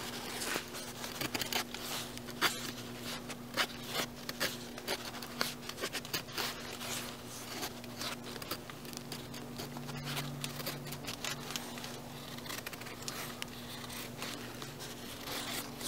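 Full-flat-grind blade of an Ontario Blackbird SK5 knife shaving curls down a stick of dry pine to make a feather stick: a run of short scraping strokes, denser in the first half. A steady low hum runs underneath.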